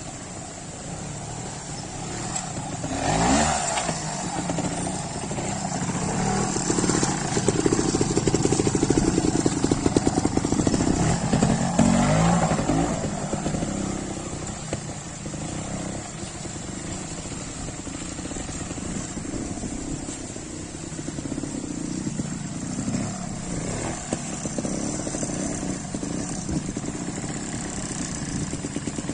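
Single-cylinder trials motorcycle engine idling and blipped with short throttle bursts as it picks its way over rocks. It revs up about three seconds in and is loudest for several seconds in the middle, then settles to a lower, steadier running.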